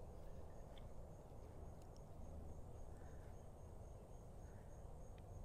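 Quiet outdoor ambience: a faint insect, likely a cricket, chirping in short even high pulses about three a second over a low rumble.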